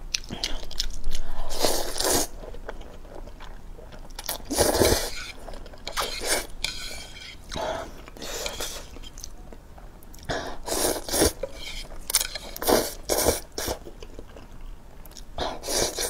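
A person slurping thick spicy instant noodles and chewing them, in a string of short slurps a second or two apart.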